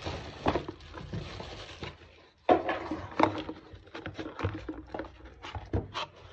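Small cardboard box being handled on a wooden workbench: a scraping rustle for about two seconds, then a run of irregular light taps and knocks.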